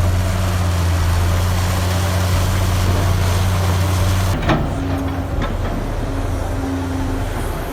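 Heavy machine's diesel engine running steadily with a deep, even hum; about four seconds in it cuts abruptly to a different, quieter engine sound.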